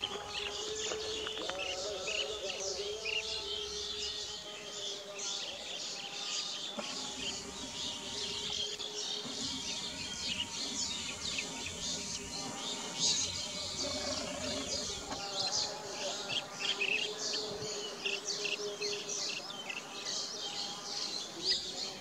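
A dense chorus of small birds chirping: many short, high chirps overlapping with no break, over a lower wavering tone.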